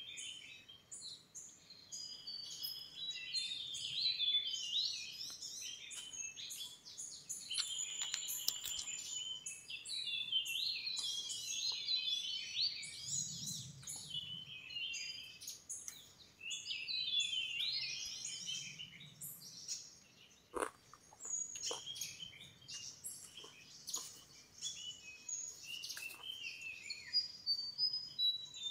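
A chorus of forest birds chirping and whistling, many short calls and pitch glides overlapping throughout, with one sharp click about two-thirds of the way in.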